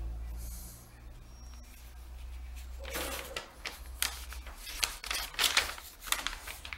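Folded paper instruction leaflet being unfolded and handled, giving a run of sharp crinkles and rustles from about three seconds in until shortly before the end.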